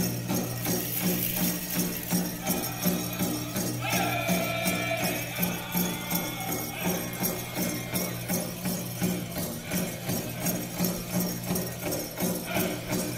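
Powwow drum group singing over a steady unison drumbeat, about two beats a second, with a high-pitched vocal line rising clearly about four seconds in. Bells jingle in time with the beat.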